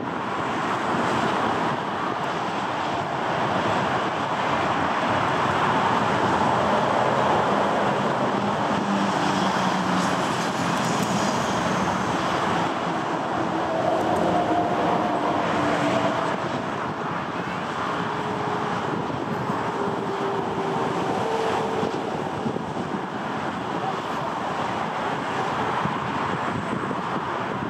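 Airbus A320-216's CFM56 jet engines at taxi power: a steady rush with a few faint, slowly drifting hum tones, easing off slightly in the second half as the aircraft taxis away.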